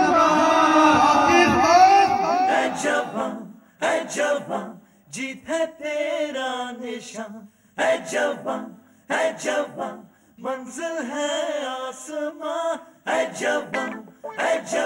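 A group of voices singing together without instruments; after about two seconds the singing goes on in short phrases with brief gaps between them.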